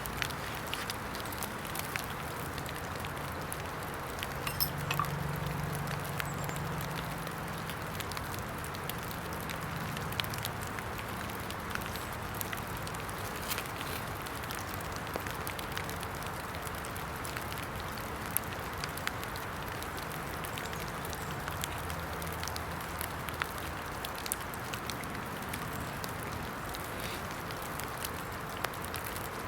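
Steady hiss of rain falling in wet woodland, with scattered small sharp ticks and crackles and a faint low hum for a few seconds early on.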